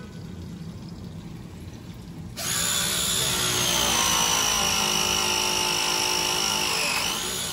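Milwaukee M12 Force Logic battery press tool pressing a copper press fitting: its motor starts suddenly about two and a half seconds in with a high whine that falls slightly in pitch, then stops near the end.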